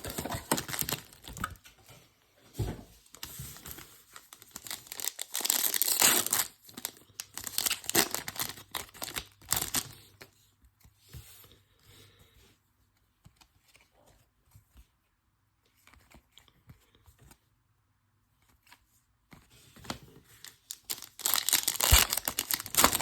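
Plastic wrappers of baseball trading card packs being torn open and crinkled, in crackling stretches during the first half and again near the end, with a quieter middle of light handling.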